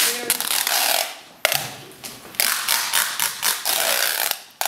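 Brown duct tape being pulled off the roll in about three long, crackling strips, the last and longest near the end, as it is wound around a person's arms.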